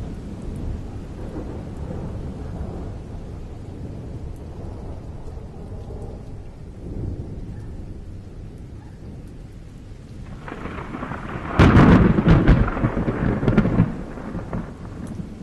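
Thunderstorm with rain: low rolling thunder rumbles steadily, then a close thunderclap breaks in about three-quarters of the way through, loud and crackling for a few seconds before rolling off.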